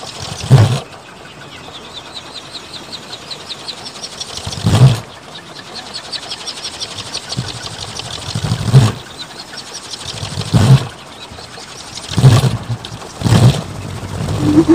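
Large wooden kolecer wind propeller turning in the wind: deep whooshes as the long blade sweeps past, at uneven gaps that come closer together toward the end. Under them is a steady rushing noise with a fast, light rattle.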